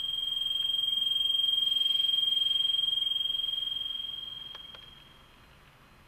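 A single steady high-pitched tone swells in, holds, and fades away about five seconds in. Two faint clicks sound near the end of the fade.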